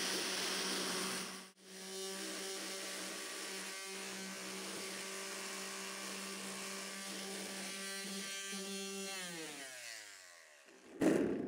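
Small electric sander bolted to a stainless steel fryer pan, running as a homemade vibrating parts cleaner: a loud, steady motor hum that cuts out for a moment about a second and a half in, then runs on before winding down in pitch and stopping near the end. A short thump follows just before the end.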